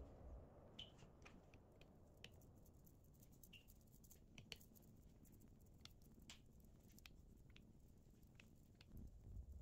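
Near silence with faint scattered ticks and a few brief squeaks as wood glue is applied and spread along the edge of an oak board.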